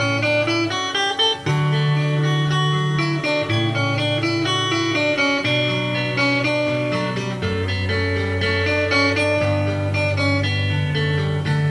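Live steel-string acoustic guitar playing an instrumental passage: picked notes over low bass notes that each ring for a second or two before changing.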